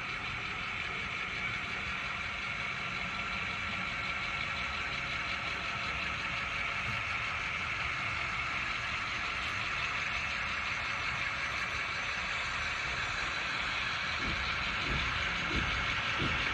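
Model diesel locomotive running toward the camera, a steady mechanical hum that grows slowly louder as it comes nearer. In the last few seconds there is a run of low knocks.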